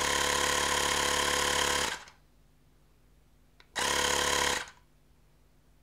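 Xiaomi Mijia electric air pump's compressor running steadily while inflating a scooter tyre, stopping about two seconds in. After a small click it runs again for under a second and stops, bringing the tyre to about 42 PSI.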